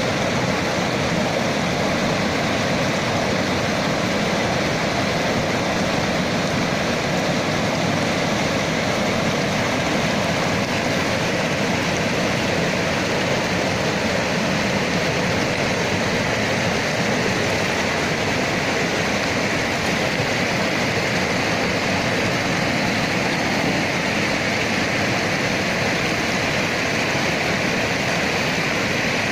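Mountain river rushing over boulders and small cascades: a steady, even rush of white water.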